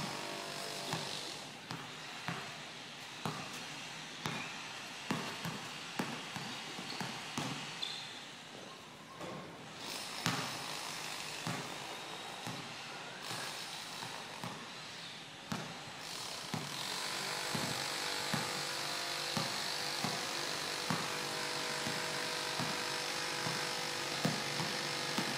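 A basketball dribbled on a concrete court, roughly one bounce a second, with a brief lull near the middle. Under it a steady background hiss gets louder about two-thirds of the way in.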